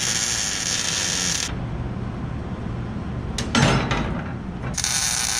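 Wire-feed welder arc crackling as steel drawer brackets are tack-welded inside a steel truck toolbox, for about the first second and a half. After a pause there is a clank of metal being handled about three and a half seconds in, then another short burst of welding near the end.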